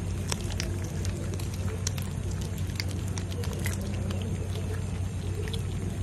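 Kitten chewing and gnawing a raw fish: irregular wet clicks and crunches from its mouth working the fish, over a steady low hum.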